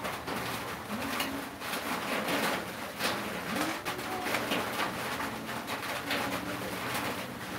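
Doves cooing in low, drawn-out calls several times, with soft scratchy paintbrush strokes on wood.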